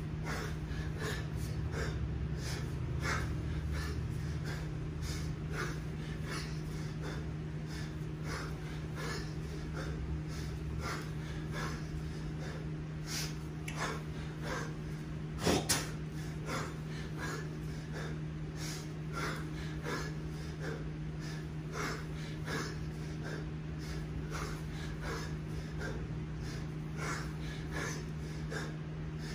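A man breathing hard in quick, repeated breaths in time with his 20 kg kettlebell snatch reps, the laboured breathing of late in a 10-minute set. A steady low hum runs underneath, and a single sharp click comes about halfway through.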